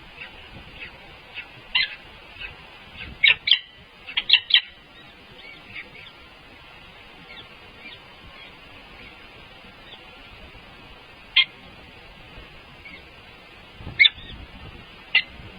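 Short, high bird chirps at irregular intervals. A quick cluster comes three to four seconds in, and single chirps come later and near the end, over a steady hiss.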